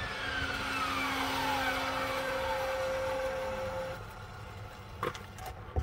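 A vehicle going away, its whine sliding down in pitch and fading out about four seconds in, with a couple of short knocks near the end.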